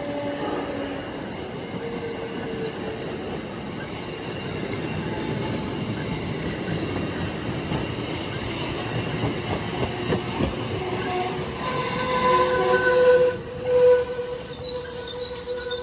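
Amtrak stainless-steel passenger coaches rolling past on the rails, with a continuous rumble of wheels on track. Near the end a steady high metallic squeal sets in as the last cars go by.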